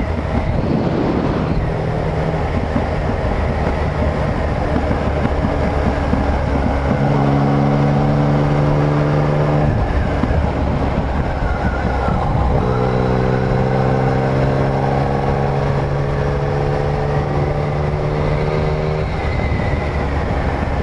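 Yamaha MT-09's three-cylinder engine running at road speed, ridden on the open road. A clear engine note is held twice for a few seconds, the second time rising slightly in pitch as the bike pulls.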